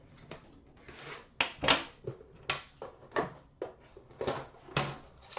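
A cardboard card box and the metal tin from a 2015-16 Upper Deck The Cup hockey box being handled and set down: an irregular run of knocks, clicks and short scrapes, the loudest about a second and a half in.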